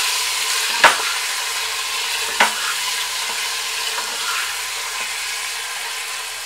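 Raw minced mutton sizzling in hot mustard oil in a pressure cooker on high flame as it is stirred with a spatula. The spatula knocks sharply against the pot twice, once about a second in and again near two and a half seconds.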